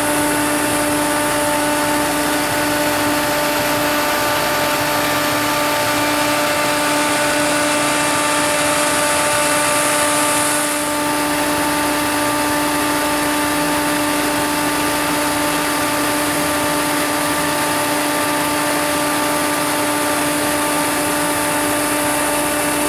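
Snowmaking guns running: a steady machine hum held at one fixed pitch over a constant hiss of spraying air and water. The highest part of the hiss drops slightly about eleven seconds in.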